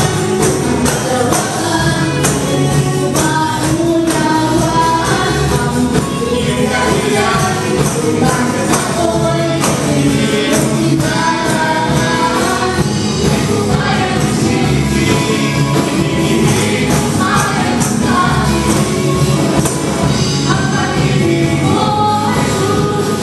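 Upbeat gospel worship song with voices singing over a steady beat and tambourine jingles throughout.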